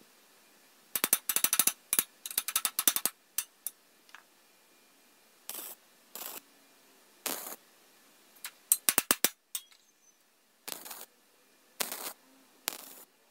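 Wire-feed welder tack-welding a corner of a steel box-section frame: short bursts of arc crackle with pauses between them, including rapid crackling runs about a second in and again about nine seconds in.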